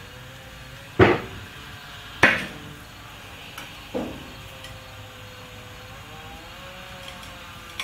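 Three loud metallic clunks, each with a short ringing decay, as the 1971 Dodge Charger's body is let down and settles onto the jack stands, its weight closing the gap at the new trunk pan.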